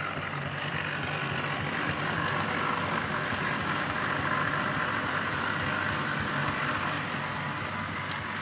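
Model diesel locomotive engine sound, running steadily, as played by a model train's sound system.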